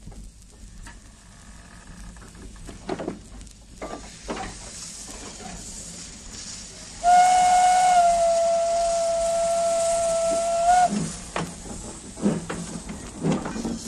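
Steam locomotive whistle blowing one long steady note for about four seconds, starting about halfway through and dipping slightly in pitch just after it begins, over hissing steam. Quieter scattered knocks and hisses come before and after it.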